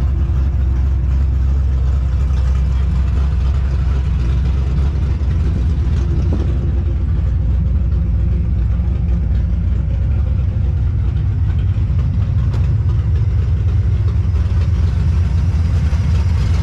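A car engine running steadily at a low, even rumble.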